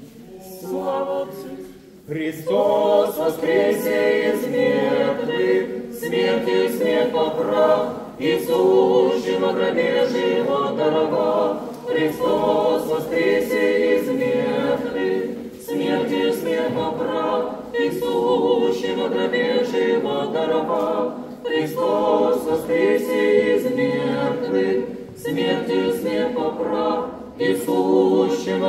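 Unaccompanied choir singing an Orthodox memorial chant in sustained phrases, each a few seconds long. It enters softly, and the full choir comes in about two seconds in.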